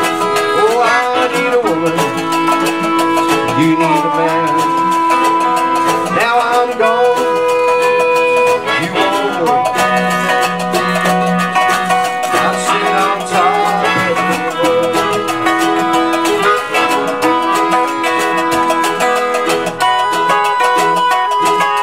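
Live band playing an instrumental passage: a harmonica carries the lead in long held notes that bend in pitch, over strummed guitar and other plucked strings.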